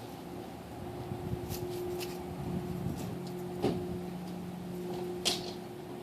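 2001 Honda Civic idling, heard at its silencer-fitted exhaust: a low, steady hum, with a couple of sharp knocks partway through.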